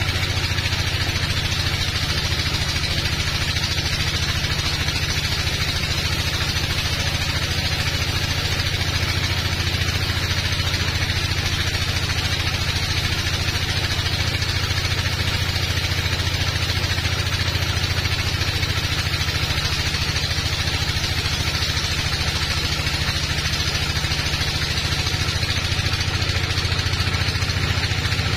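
Band sawmill running steadily as its blade cuts lengthwise through a teak log: an unbroken low drone with a hiss above it.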